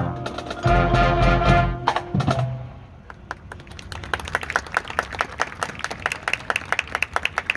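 Marching band playing sustained wind chords that cut off after about two seconds, followed by a fast run of sharp wooden clicks from the percussion that grows louder.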